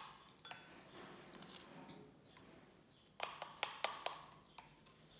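Small spoon clicking and tapping against a small cup while powder is scooped, with a quick run of four clicks about three seconds in.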